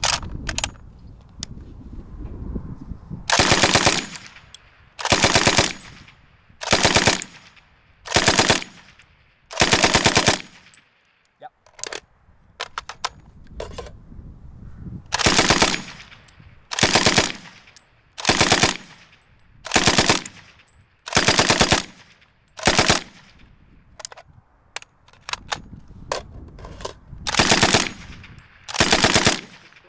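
Bren light machine gun firing short bursts of a few rounds about every second and a half, at the rapid rate of fire of 125 rounds a minute. Twice the firing stops for about four seconds, with only a few faint clicks in each pause.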